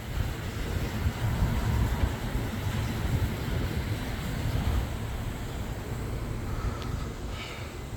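Outdoor street ambience: wind rumbling on the microphone over passing traffic, with a faint brief higher-pitched sound near the end.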